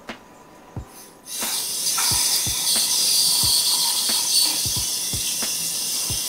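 Water running from a sink tap: a steady hiss that starts about a second in, with a few soft low knocks under it.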